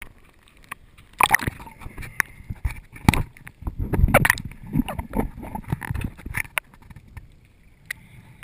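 Water splashing and gurgling around a waterproof camera as it is dipped below the surface, with irregular knocks and scrapes of handling on the housing.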